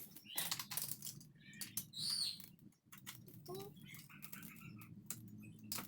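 Rustling and clicking of packaging being handled and pulled open, in a run of short irregular scrapes and clicks, with a brief high chirp-like squeak about two seconds in.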